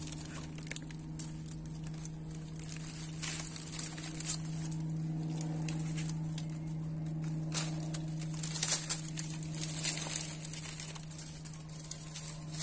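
Dry palm fronds rustling and crackling with scattered clicks as a man moves and handles fishing gear among them, over a steady low hum.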